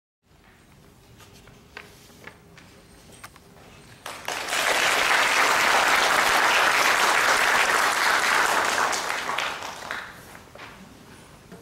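Audience applauding: the clapping starts about four seconds in, rises quickly, holds for about five seconds and dies away. A few faint knocks come before it.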